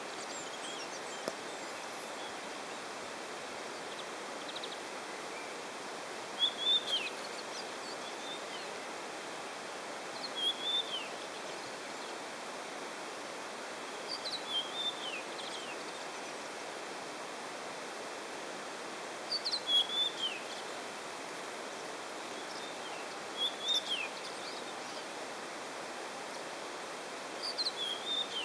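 A songbird singing a short, high, falling phrase about every four seconds over a steady background hiss.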